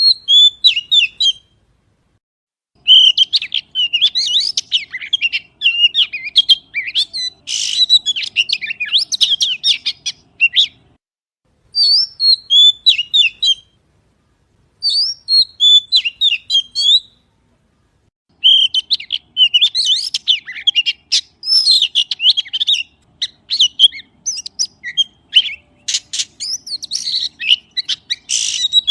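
Magpie singing close up: rapid strings of chirps and whistled notes in phrases of a few seconds, with four short pauses between them.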